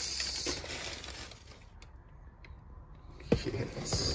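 Hands handling a cardboard parcel and its packing: papery rustling that dies down in the middle, then a sharp knock about three seconds in and a few lighter clicks after it.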